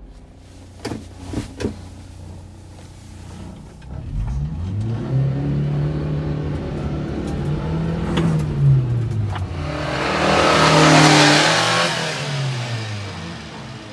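1998 Subaru Sambar kei truck's 660 cc four-cylinder engine pulling away and accelerating, its pitch rising and dropping several times as it shifts up through the gears. It is loudest as the truck drives past about eleven seconds in, then fades. A few short knocks come about a second in.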